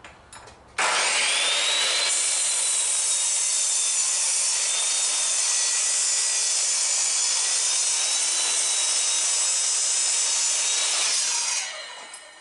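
Electric miter saw starting up, its whine rising about a second in. It runs steadily while it cuts through a wooden 4x4 post for about ten seconds, then winds down near the end.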